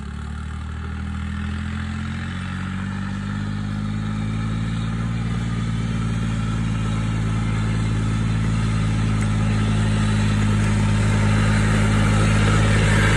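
John Deere 5050D tractor's three-cylinder turbo diesel engine running as it tows a tillage implement across a field. It revs up slightly at first, then holds steady, growing louder as the tractor comes closer.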